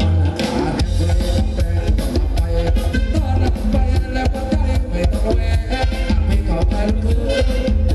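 Live band playing Thai ramwong dance music, loud, with a steady drum beat and heavy bass.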